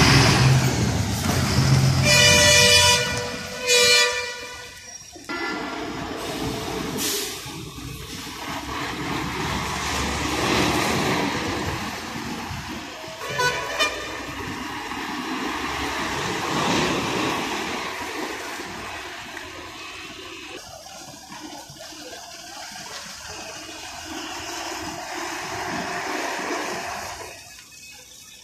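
A bus engine running close by, with two short horn blasts about two and four seconds in. After that, the steady noise of buses driving and idling, with a brief horn toot about halfway through.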